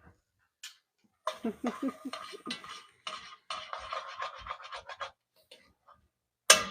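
A utensil scraping rapidly back and forth across the bottom of a pot, working the browned fond loose as the pot is deglazed, with a louder clatter near the end.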